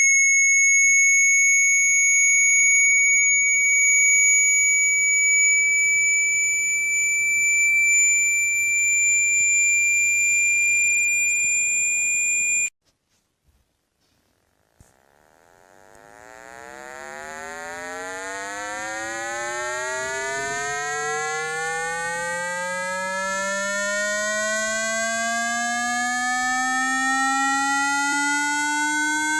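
Synthetic speaker water-ejection tones, meant to be played at full volume to shake water out of a phone or earphone speaker. A steady high-pitched tone creeps slightly upward and cuts off suddenly about 13 seconds in. After about two seconds of silence, a low buzzy tone with many overtones fades in and slowly rises in pitch.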